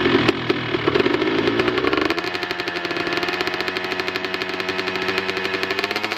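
A 125 cc trail motorcycle engine running. It is revved for about the first two seconds, then drops back to a steady, evenly pulsing idle.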